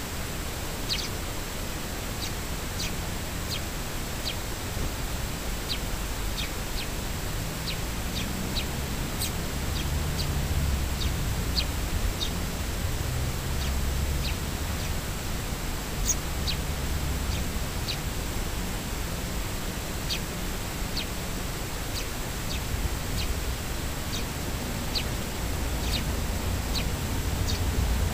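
A flock of Eurasian tree sparrows chirping as they feed on the ground, adults and begging young. The chirps are short and scattered, one or two a second, over a steady low background rumble.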